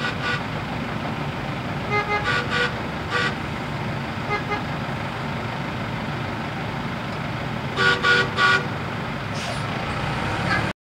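Repeated short horn toots in several groups, the loudest a run of three about eight seconds in, over a steady low rumble of engines. The approaching light-rail train is honking to warn a transit bus that is fouling the grade crossing, and the bus honks back.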